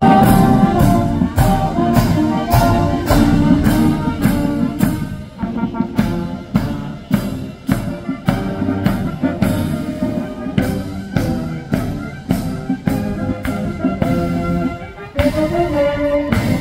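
Military band playing a march: brass melody over a steady drum beat, about two beats a second.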